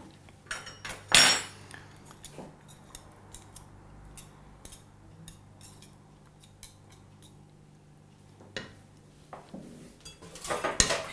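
Wire whisk clinking and knocking against a glass mixing bowl as thick cookie dough is worked: scattered light clinks, with a louder knock about a second in and a cluster of louder ones near the end.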